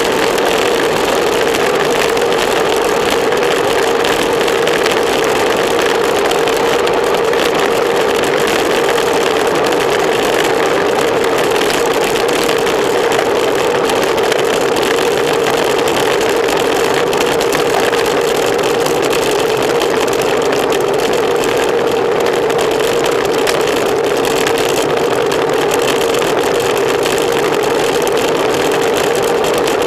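Steady wind rushing over a bicycle-mounted camera's microphone as the bike rides at racing speed, with a constant hum underneath.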